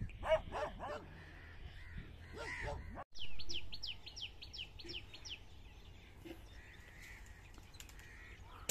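Birds calling: a few short calls in the first second and again near three seconds, then a quick run of about ten down-slurred chirps, about five a second. A single sharp crack right at the end is a shot from the air rifle.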